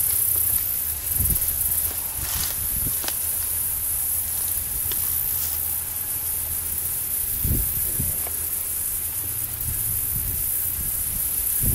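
Outdoor marsh ambience: a steady high hiss under low wind rumble and buffeting on the camera microphone, with a few soft handling bumps.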